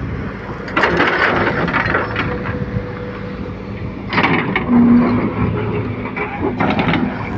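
Excavator engine running steadily, with three short bursts of clattering about one, four and six and a half seconds in.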